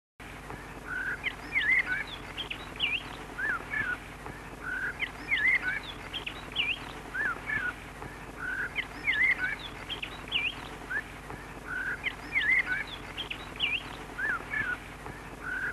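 Birdsong: a short phrase of quick rising and falling chirps, repeated in the same pattern about every four seconds over a faint steady hiss.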